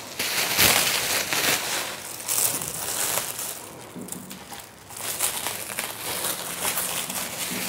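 Black plastic bag wrapping rustling and crinkling as it is pulled off a plant stand by hand, with a short lull about halfway through.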